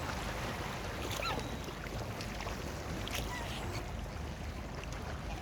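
Steady low outdoor rumble, like wind on the microphone, with a few faint short bird calls from the waterfowl at the lake.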